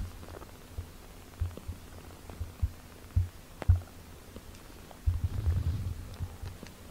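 Close-up sounds of a British Shorthair kitten nursing at its mother cat's belly: irregular soft low thumps and suckling, with a low purr underneath. The thumps come thicker about five seconds in.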